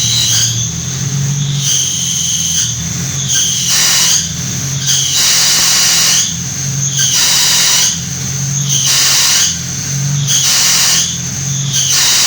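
Hot rod's clutch squealing loudly each time the clutch pedal is pressed, about eight high squeals in a row, over the steady hum of the idling engine.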